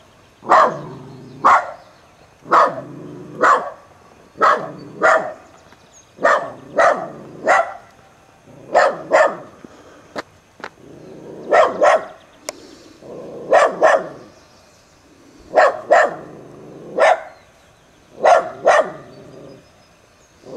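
Dandie Dinmont terrier barking repeatedly at a white tiger behind a fence: loud, sharp barks, often in pairs or threes, about one a second.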